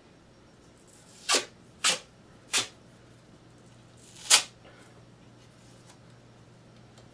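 Adhesive tape being pulled off its roll and torn, in four short ripping pulls, the last and loudest a little after four seconds in.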